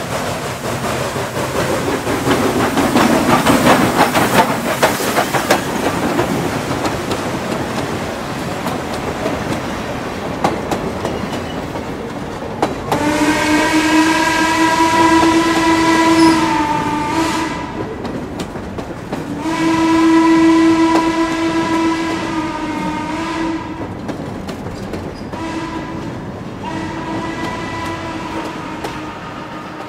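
Western Maryland 1309, a Baldwin 2-6-6-2 articulated steam locomotive, working past with its exhaust and running gear loudest a few seconds in, then its chime whistle blowing long, long, short, long, the grade-crossing signal, each blast sagging in pitch as it cuts off. Hopper cars roll by with steady wheel clatter underneath.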